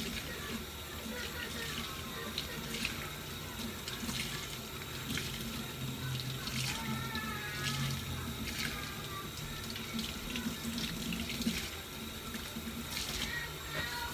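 Kitchen faucet running into a stainless steel sink while a sponge is squeezed and scrubbed under the stream, with a few light knocks.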